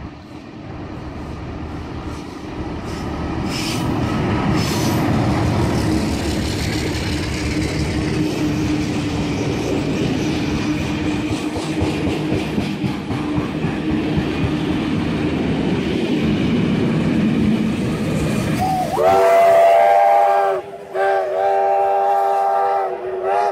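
Heritage train passing: diesel locomotive 4490 (an Alco 44 class) leading and its carriages rolling by, a steady rumble that grows louder over the first few seconds. Near the end, steam locomotive 3016 at the rear sounds its chime whistle in two long blasts.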